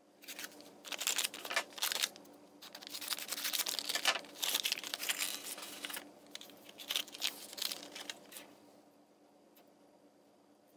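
Thin plastic blind-bag packet of a LEGO minifigure crinkling and tearing as it is opened by hand, in a run of bursts that dies away near the end.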